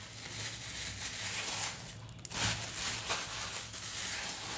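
Plastic carrier bags rustling and crinkling as they are handled and pushed into a hanging bag organizer, in uneven spurts, loudest about two and a half seconds in.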